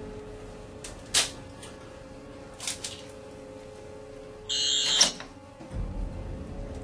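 Tense background music drone with a few sharp knocks and clicks over it. About four and a half seconds in, a brass door lever handle is worked with a half-second metallic rattle that ends in a loud click.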